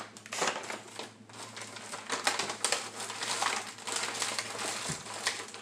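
Brown paper meal-kit bag crinkling and rustling as it is opened and rummaged through by hand, an irregular run of papery crackles.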